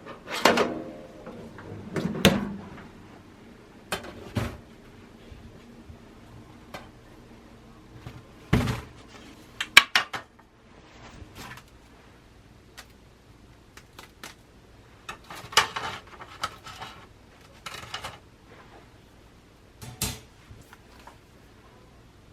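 Dishes and cutlery being handled: separate clinks and knocks, with a sharp cluster of clicks about ten seconds in.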